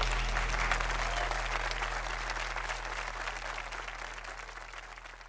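Audience applauding at the end of a song, the clapping fading out steadily, with a low steady hum beneath it.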